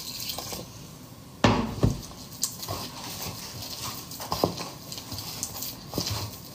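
Metal bowl and kitchen utensils being handled on a counter: two loud knocks about a second and a half in, then scattered lighter clinks and taps.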